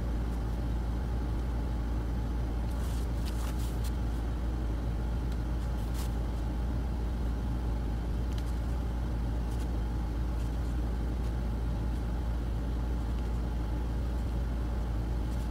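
Steady low background rumble with a few faint clicks, about three seconds and six seconds in.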